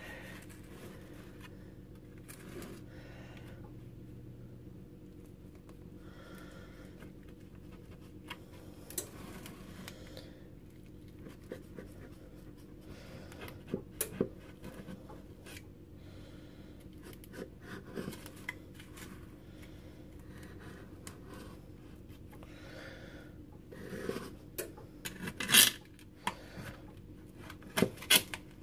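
Kitchen knife cutting a baked cheesecake with a ready-made graham cracker crust in a disposable aluminium foil pie tin: scattered short scrapes and clicks as the blade saws through the crust and knocks the foil. The clicks come thicker and louder near the end.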